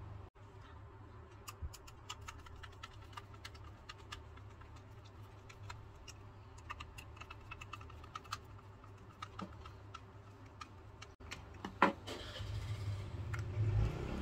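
Scattered small clicks and taps of a plastic circuit breaker case being put back together by hand, with a tiny screw and a screwdriver, and a sharper click near the end.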